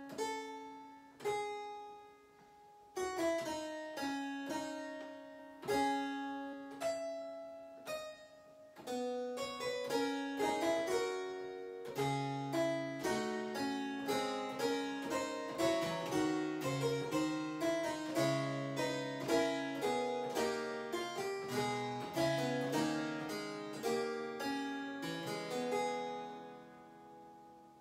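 Early keyboard instrument with a harpsichord-like tone playing the opening of a four-voice fugue on a theme that leaps up a sixth and then steps down. One voice starts alone, the others enter one by one with a low bass line joining about twelve seconds in, and a final chord rings out and fades near the end.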